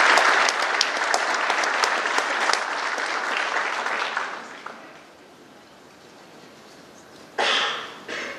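Audience applause that fades out about five seconds in. Near the end come two brief bursts of noise, the first louder.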